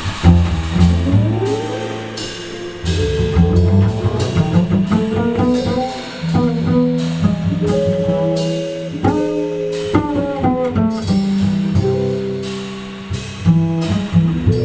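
A jazz trio playing live, with guitar lines over double bass and drum kit.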